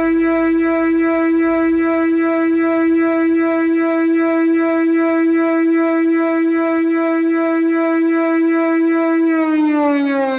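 Whelen WPS 2809 electronic warning siren sounding a loud, steady continuous tone, the all-clear/audible test signal. About nine seconds in, the pitch starts to fall as the tone winds down.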